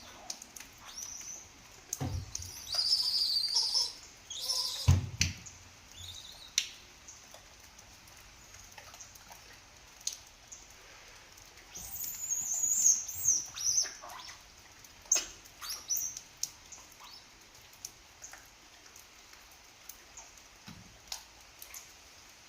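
High-pitched animal chirps and squeals in scattered bursts, busiest about three seconds in and again around twelve to fourteen seconds in, with two thumps at about two and five seconds in.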